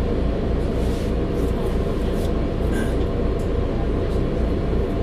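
Mercedes-Benz Citaro articulated city bus under way, heard from inside the cabin: steady engine drone and road noise with a low pulsing hum and occasional light clicks and rattles.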